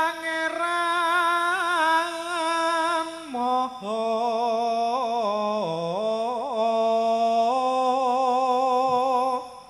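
A man's unaccompanied solo chant of a Javanese sung prayer (puji sesanti), long held notes with wavering, ornamented pitch. A short breath breaks it about three and a half seconds in, and the voice stops shortly before the end.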